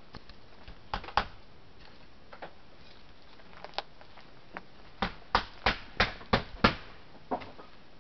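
Footsteps on wooden boards: scattered sharp knocks, then a quick, even run of six steps about five seconds in, and one more near the end.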